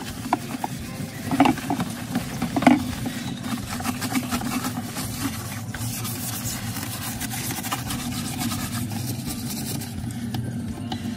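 Small pressure washer motor running steadily while it sprays water, with scattered clicks and knocks.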